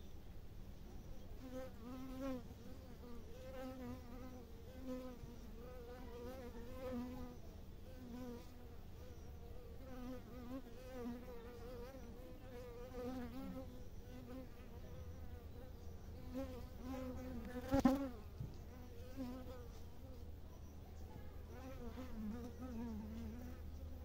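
Honeybees buzzing on the comb inside their hive: a wavering hum of wingbeats that swells and fades as bees move about. A brief knock sounds about eighteen seconds in.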